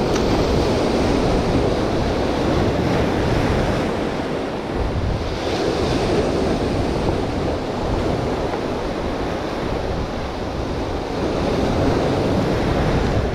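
Ocean surf breaking over shoreline rocks and washing back in foam, in swells that rise and fall.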